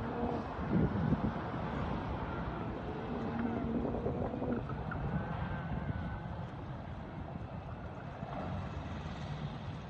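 A car's engine running through an autocross course, with wind noise on the microphone. A steady engine tone stands out for about a second and a half near the middle.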